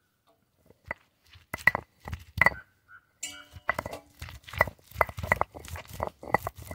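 About a dozen irregular sharp knocks, each with a short ring, with a brief pitched call a little after the middle.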